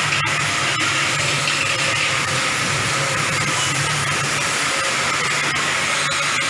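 Robotic arc welding: a steady hiss over a low electrical hum, broken by a few brief dips.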